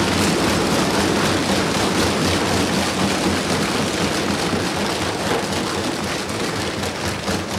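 Assembly members applauding by thumping their desks: a dense, steady patter of many quick knocks that slowly fades toward the end.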